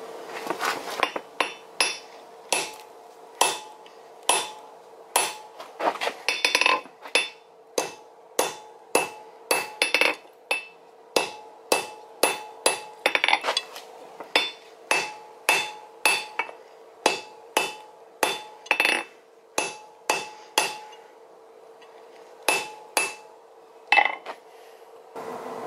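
Hand hammer striking a red-hot steel rod on an anvil, about one and a half blows a second, each with a short metallic ring. The blows pause briefly near the end before a few last strikes. A steady hum runs underneath.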